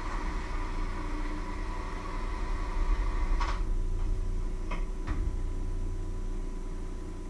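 A steady low hum with a faint whine, broken by three short clicks of a utensil against a metal bowl about three and a half, four and three-quarters and five seconds in.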